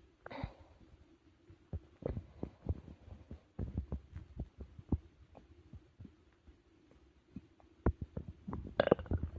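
Human stomach and intestines gurgling during digestion after a big meal: irregular bubbly gurgles and small pops with short quiet gaps, over a faint steady hum. One gurgle comes just after the start, and a longer, louder one near the end.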